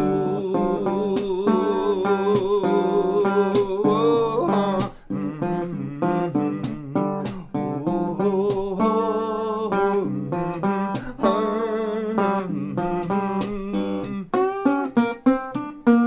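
A 1929 National resophonic guitar with a metal body, picked fingerstyle in a blues style: a run of quick, separate plucked notes, busier near the end. A held, wavering sung note lasts through the first four seconds.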